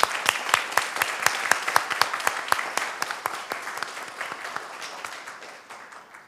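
Audience applauding, many hands clapping, the applause dying away near the end.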